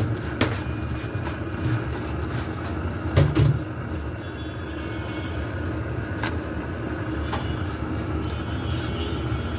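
Paratha frying in oil in a nonstick pan: a steady low rumble and sizzle, with a wooden spatula scraping and knocking against the pan several times, loudest about three seconds in.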